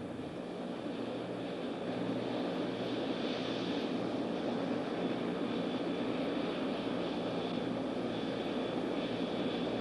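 Bell OH-58 helicopter's Allison T63 turboshaft idling with the rotor turning, heard from inside the cockpit: a steady high whine over a low hum and broad rushing noise. The engine is idling to cool down before shutdown.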